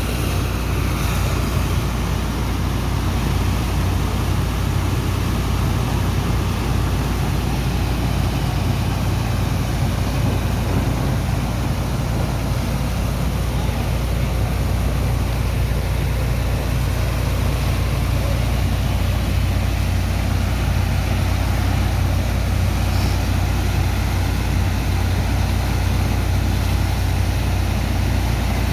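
Engine of a sand dredger running steadily as it pumps sand out of a barge: a constant low drone that holds an even level throughout.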